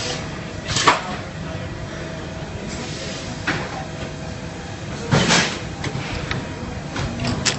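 Pneumatic computerised toe lasting machine cycling: short bursts of exhaust air hiss, one about a second in and a longer, louder one about five seconds in, with sharp clicks of its actuators over a steady background hum.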